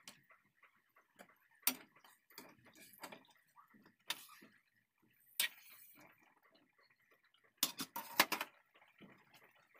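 Metal spatula clinking and scraping against an aluminium wok as chicken wings are stirred in sauce, over a faint steady sizzle. A quick cluster of louder clatters comes about eight seconds in.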